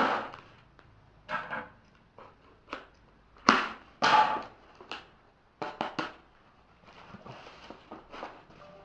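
Cardboard box and packaging being handled and opened: a series of short scrapes and rustles, with a few quick clicks about six seconds in.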